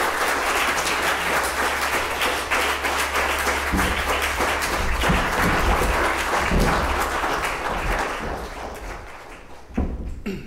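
Audience applauding, a dense patter of many hands that thins and dies away near the end, followed by a couple of knocks.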